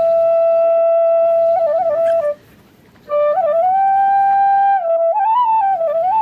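Background music: a solo flute playing a slow melody of long held notes with small ornamental turns. It breaks off for about a second near the middle, then resumes.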